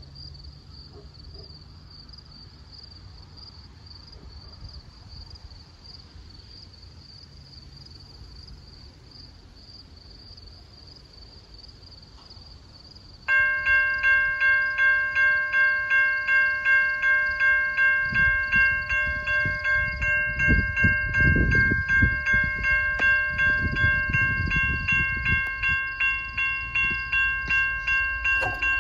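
Railway level-crossing warning bell starts ringing abruptly about halfway in, a loud ringing strike repeated about twice a second, signalling an approaching train. Before it there is only faint outdoor ambience with a steady high hum, and irregular low rumbles run under the bell later on.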